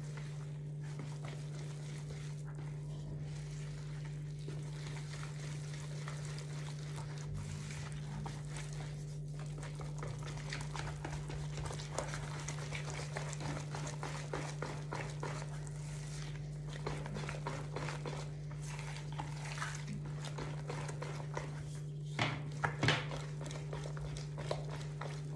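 Wire whisk stirring a thick, wet flour batter in a plastic bowl: a rapid run of small clicks and scrapes of the wire against the bowl, busier in the second half, with a few louder knocks near the end. A steady low hum runs underneath.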